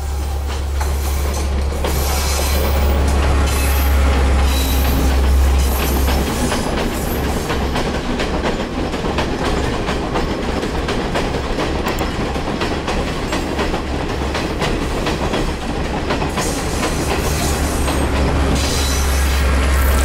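Blue diesel passenger train passing close by: a steady low rumble, with rapid clacking of its wheels over the rail joints, thickest through the middle as the carriages go by.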